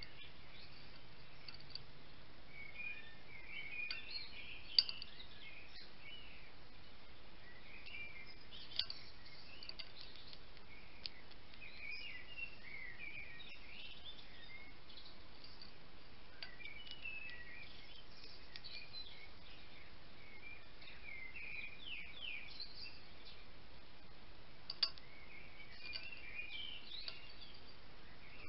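Songbirds chirping and singing throughout as short, quick, high phrases, over a steady outdoor hiss. A few sharp clicks stand out, the loudest about five, nine and twenty-five seconds in.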